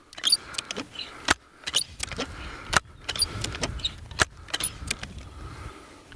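Handling clicks and clacks from a Benjamin Sheridan Blue Streak .20 multi-pump air rifle as its action is worked and its pump lever swung open to charge it: a dozen or so sharp metallic clicks, irregularly spaced.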